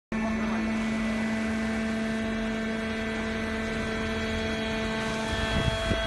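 Hydraulic metal chip baler's motor and pump running with a steady hum: one held tone with fainter tones above it. Near the end a few low knocks and rumbles join in.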